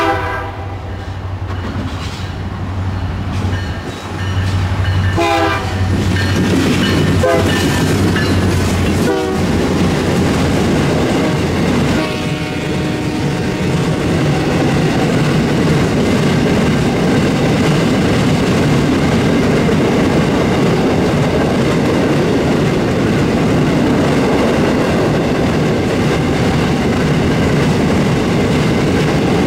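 A CN diesel freight train passing close by at speed. The locomotives sound a few short horn blasts and their engines rumble past in the first ten seconds. After that comes a long, steady run of new empty DMIR iron-ore hopper cars rolling by, their wheels clattering over the interlocker's crossing.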